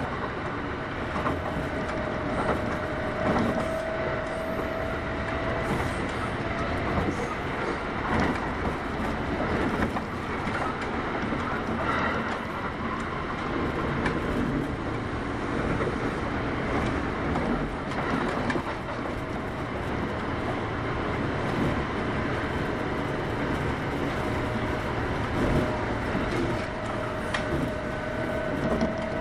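Kintetsu 8810 series electric train running at speed, heard from inside the car: a steady rumble of wheels on rail with scattered clicks over rail joints and a hum that comes and goes.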